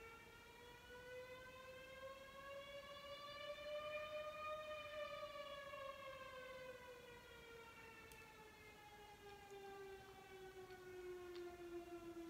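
Village civil-defense siren sounding the daily noon alarm, faint, its pitch winding slowly up to a peak about four seconds in and then sliding back down.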